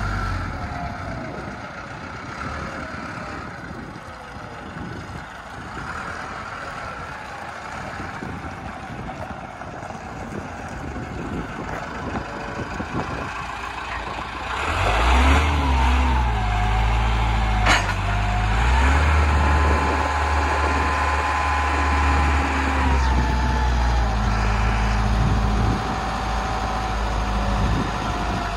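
Caterpillar RC60 rough-terrain forklift's engine running as it drives: quieter and farther off at first, then loud and close from about halfway, with the engine speed rising and falling. One sharp click comes about two-thirds in. After that a steady high tone sits over the engine while the mast is raised.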